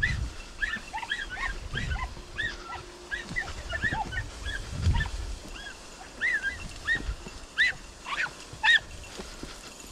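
Podenco hunting dogs yelping in quick, high, repeated cries, several voices overlapping, thinning out near the end, as hounds do when hunting rabbits through the reeds. A low thump about halfway.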